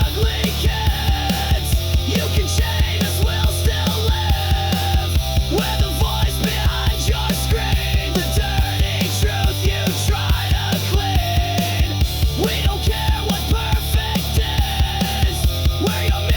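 Loud grunge rock music: distorted electric guitars and bass over drums keeping a fast, regular beat, with the bass line shifting pitch every few seconds.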